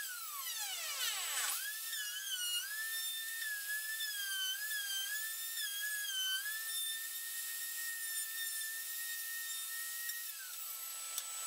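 Plunge router running at high speed, a high whine that wavers in pitch as the bit cuts a circular groove in wood. Its pitch drops sharply at the start and climbs back about a second and a half in; about ten seconds in it is switched off and winds down.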